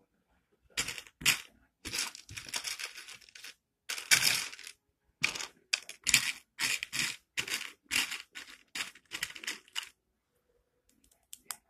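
Loose plastic Lego bricks clattering and rustling in short, irregular bursts as a hand sifts through a pile of pieces, starting about a second in and stopping about ten seconds in.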